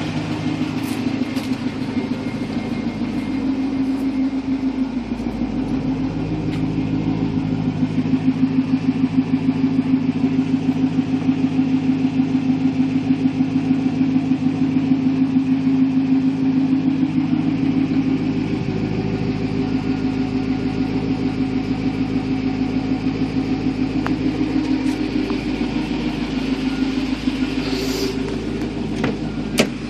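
2006 Pontiac GTO's 6.0-litre LS2 V8 idling steadily with a light, rapid valvetrain tapping, which the owner takes for lifter tap. A single sharp click comes just before the end.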